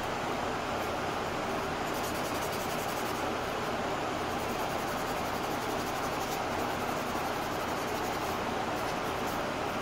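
A steady, even rush of moving air, like a ventilation fan or blowing air in a paint-prep area.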